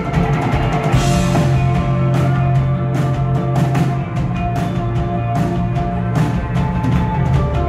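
A live rock band playing loudly: held chords ring on over regular drum hits and cymbal strikes.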